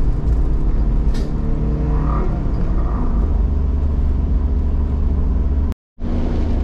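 Steady road and engine noise of a moving car, heard from inside the cabin as it drives into a tunnel, with a low rumble throughout. There is a sharp click about a second in, and the sound drops out completely for a moment near the end.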